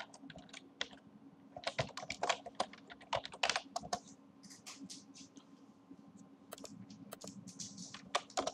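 Typing on a computer keyboard: two spells of quick keystrokes, one about two to four seconds in and another near the end, over a faint steady low hum.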